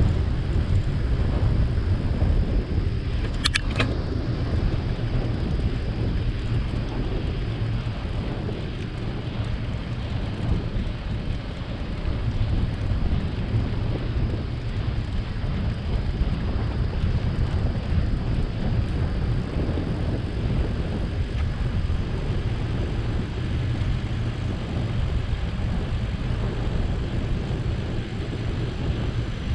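Steady low wind rumble on the microphone of a camera riding along on a bicycle, with one brief sharp click about three and a half seconds in.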